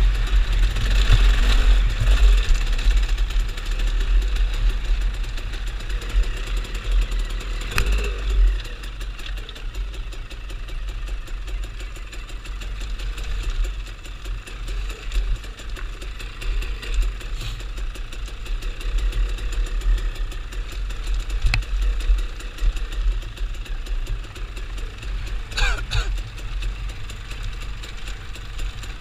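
A vehicle engine idling with a steady low rumble, with a few sharp knocks, the loudest about eight seconds in and again near the end.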